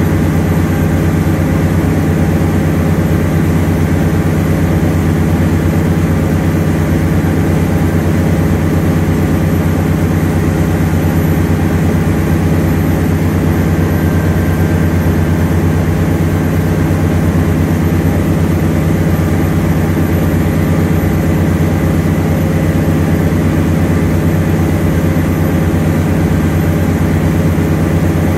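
Fishing boat's engine running steadily, a loud, even low hum that does not change.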